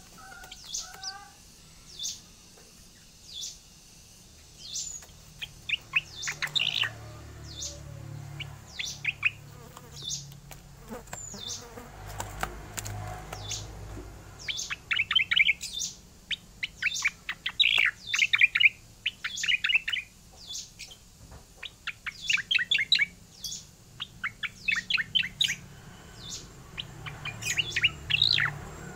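Cucak koreng songbird singing in its rolling (ngeroll) style: bursts of rapid chirping notes come back several times, with single sharp high notes between them. A low steady hum lies under the song.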